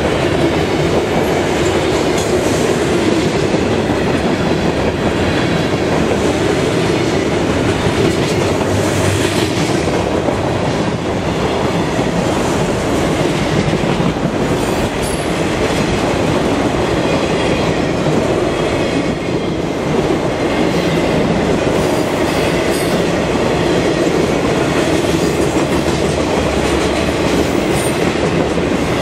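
Freight cars of a mixed freight train (covered hoppers, autoracks and boxcars) rolling steadily past close by, their steel wheels running over the rails in a loud, even rumble.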